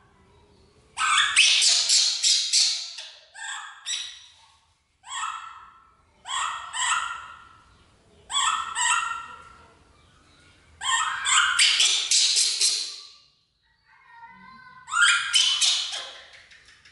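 Baby macaque crying in high-pitched squealing calls, in about eight bouts of quick repeated cries with short pauses between.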